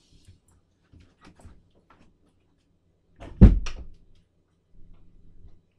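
A few light knocks and shuffles, then a door shutting with a heavy thud about three and a half seconds in, with a sharp click of the latch just after, followed by faint rustling.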